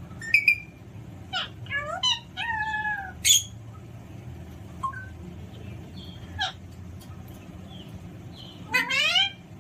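Alexandrine parrot calling: a series of short pitched calls with gliding notes, a quick run of them about two to three seconds in, and a longer rising call near the end.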